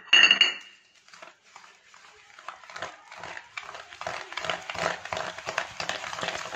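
Wire whisk beating a thick semolina, sugar and curd mixture in a stainless-steel bowl, with rapid scraping strokes that grow quicker and louder over the last few seconds. A short, loud, ringing sound comes right at the start.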